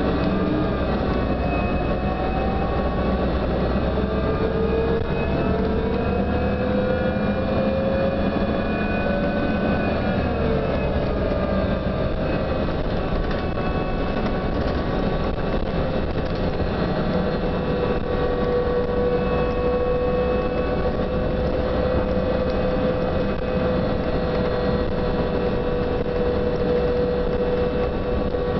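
A New Flyer DE42LFA diesel-electric hybrid bus heard from on board, with its drive giving a whine of several tones over the rumble of engine and road. The tones glide up and down for the first ten seconds or so, then settle into a steady whine. It is a sound the rider finds weird and unique, cause unknown.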